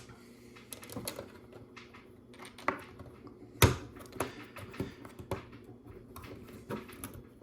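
LEGO plastic pieces clicking and tapping as they are handled and pressed onto a plate: irregular sharp clicks, the loudest about three and a half seconds in.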